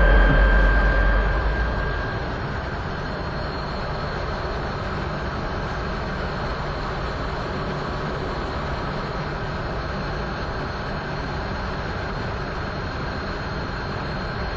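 Aircraft engine running, its loud low rumble and steady tone dropping away about two seconds in. It settles to a steady, even noise with a faint high whine.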